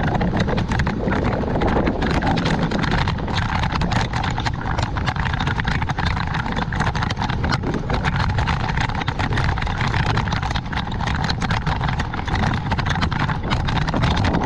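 Road bicycle ride heard through a GoPro: a steady rumble of tyres and road vibration with dense, continuous clicking and rattling, and wind on the microphone.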